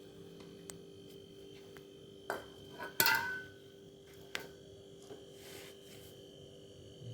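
Steady hum of a refrigerator compressor running during refrigerant charging, with a few sharp metallic clinks. The loudest, about three seconds in, rings briefly like struck metal.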